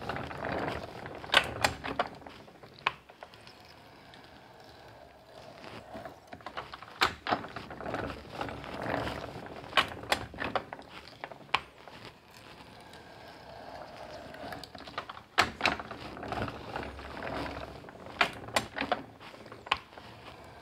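Small antique hand-cranked metal planer being worked by hand: irregular clacks and knocks from its mechanism and ratchet feed, with stretches of rasping noise between them.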